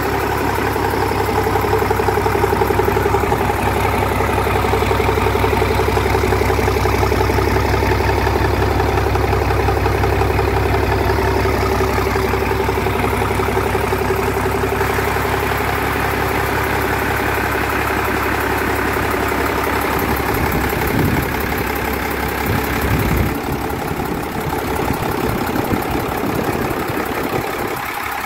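Yamaha MD750 six-cylinder marine diesel engine running steadily on a test stand. About twenty seconds in, its deep low hum breaks up and the sound of the engine changes.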